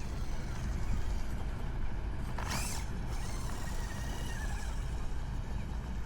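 Small Axial SCX24 RC rock crawler at work over a steady low rumble: a short scraping rush about two and a half seconds in, then a faint high motor whine for about a second.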